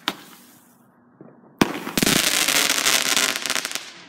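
Consumer aerial fireworks: a sharp bang just after the start, a louder bang about a second and a half in, then about two seconds of dense crackling as crackling stars burn out.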